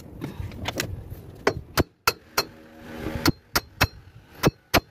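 Heavy steel chain clinking and rattling as it is handled: a string of sharp, irregular metallic clinks.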